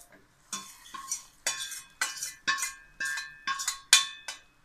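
Stainless steel ladle scraping and knocking against a small steel frying pan as ghee-fried cashews and raisins are scraped out of it: about nine ringing metallic clinks, the loudest near the end.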